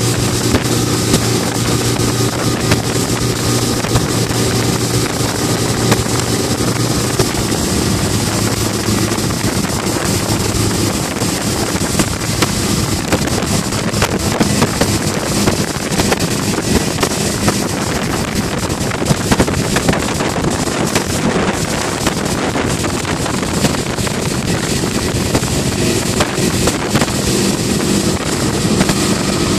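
Mercury four-stroke outboard motor running steadily at speed under load while towing a banana boat, mixed with wind buffeting the microphone and the rush of the wake.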